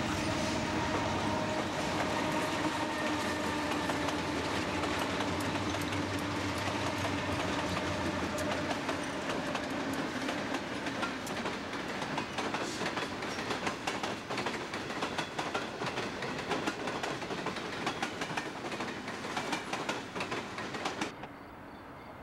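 Conrail GE diesel locomotives passing close with their engines running, the trailing unit a B23-7. They are followed by the empty coal hopper cars, whose wheels clatter and click rapidly over the rail joints. Near the end the sound cuts off abruptly to a much quieter background.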